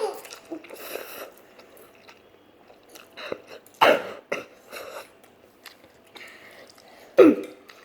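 Chewing and biting on Buldak spicy instant noodles, broken by a few short, louder sounds: one about four seconds in and one near the end.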